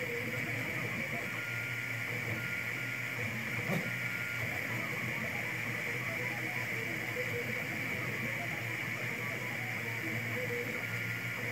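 Anet A8 3D printer running mid-print: a steady cooling-fan whir and low hum, with the stepper motors giving short pitched tones as the print head moves. A single click comes about four seconds in.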